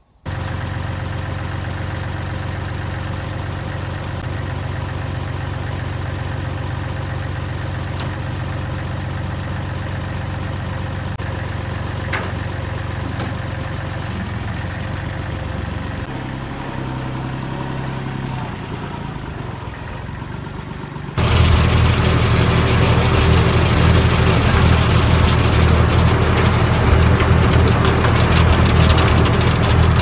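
An engine idling steadily. About 21 seconds in it becomes suddenly louder and rougher.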